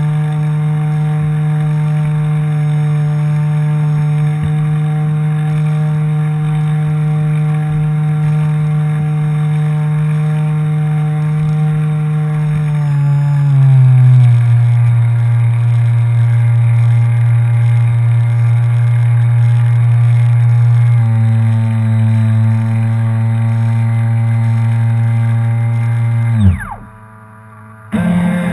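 The motor of a modified RC Atlantic tug boat running under way at a steady pitch. The pitch drops a step about halfway through and shifts again later on. Near the end it winds down quickly and stops, then runs again briefly.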